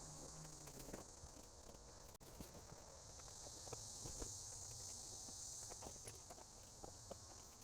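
Faint, steady high-pitched insect chorus, with a few faint scattered taps and footsteps.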